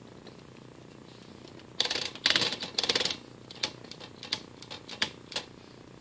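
Remington Streamline 5 typewriter's platen being turned by its knob, its ratchet detent clicking: three quick runs of rapid clicks about two seconds in, then a scatter of single clicks.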